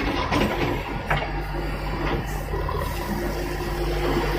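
Terex TLB 740S backhoe loader's diesel engine running under load while the backhoe arm works, with a few sharp knocks from the arm and bucket in the first two seconds.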